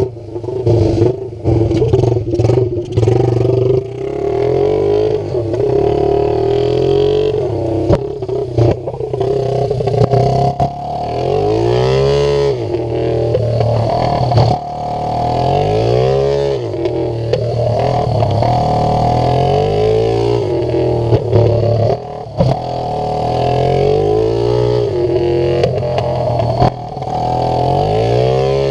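Single-cylinder pitbike engine heard up close from on board, revving up and down as the bike accelerates and then rolls off for turns. The engine note climbs and then drops sharply four or five times.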